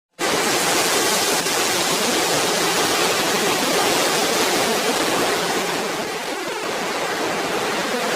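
Steady, even rushing noise that cuts in suddenly right after a moment of silence.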